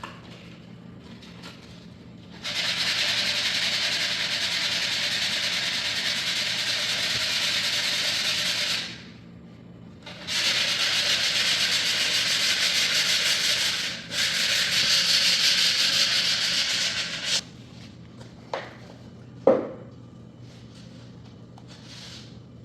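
Sanding the edge of a laminate floor plank with 100-grit sandpaper to take off a leftover small edge: two long, steady passes of about six and seven seconds, with a brief pause between them. Two short knocks follow near the end.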